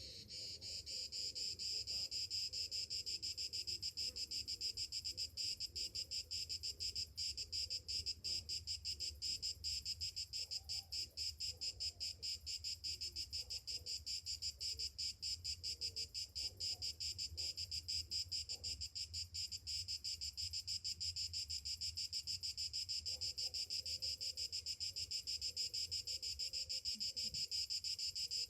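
Cicadas singing: a loud, steady buzz made of very rapid pulses, swelling up over the first second.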